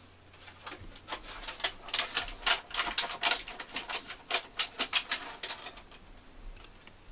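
A cat sniffing right at the camera's microphone: a quick, irregular run of short sniffs, about four a second, that dies away after about five seconds.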